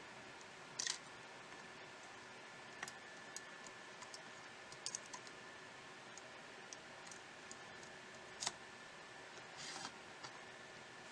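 Faint, scattered small clicks and taps of tools and parts being handled on a smartphone under repair, over a steady hiss. The sharpest clicks come about a second in and about eight and a half seconds in, with a short scraping rustle near the end.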